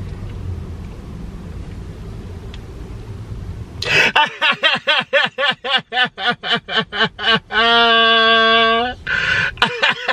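A man cackling: after a few seconds of low steady rumble, a fit of rapid, pitched 'ha-ha' bursts about five a second breaks out, with one long held note in the middle before the bursts pick up again.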